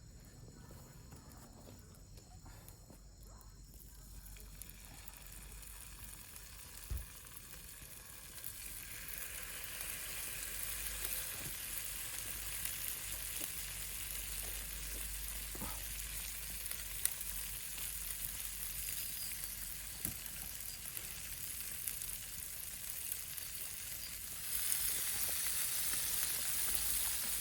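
Fish sizzling over a wood fire. The sizzle builds up gradually and gets louder near the end.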